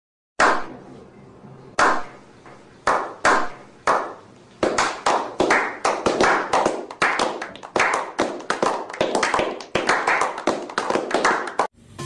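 A small group of people doing a slow clap. It starts with single claps about a second apart, then speeds up into a quick run of several claps a second, and cuts off suddenly near the end.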